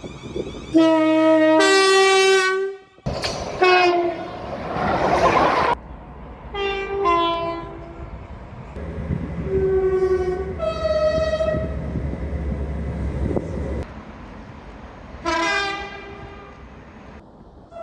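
A string of train horn blasts, each sounding several notes at once, some short and some held for a couple of seconds. One long blast in the middle has a train's low rumble beneath it.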